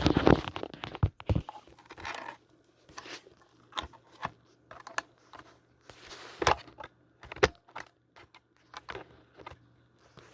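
Irregular clicks, scrapes and rustles of hands handling laptop hard drive parts while a drive is being fitted, over a faint steady low hum.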